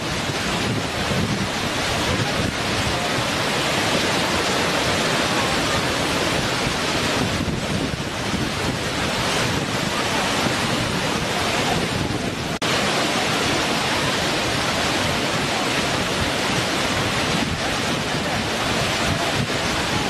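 Waterfall: a steady, loud rush of falling water, with one abrupt cut about twelve and a half seconds in where the rush changes slightly.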